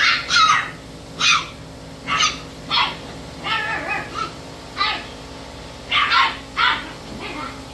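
Puppies barking and yipping in short, high-pitched calls, one or two a second, excited at having heard a familiar person.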